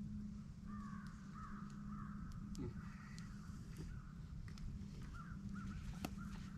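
Birds calling outdoors: a string of wavering, crow-like calls lasting several seconds, with a few faint clicks and a steady low hum beneath.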